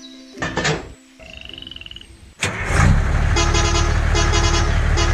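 A sharp bang, then a vehicle engine starts up and runs steadily with a low hum and a regular pulsing rhythm.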